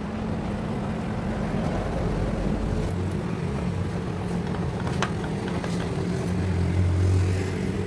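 Steady low rumble of a running motor or engine, with a single sharp click about five seconds in.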